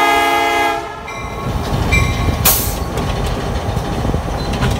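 Diesel locomotive's multi-chime horn blast ending just under a second in, with its bell ringing about once a second over the steady rumble of the engine and wheels on the rails. A short hiss comes about halfway through.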